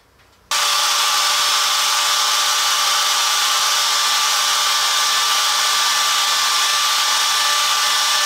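Handheld router running at a steady pitch with a high whine, starting abruptly about half a second in, its bit skimming the floor of a shallow recess in the wooden workbench top through a template to flatten it.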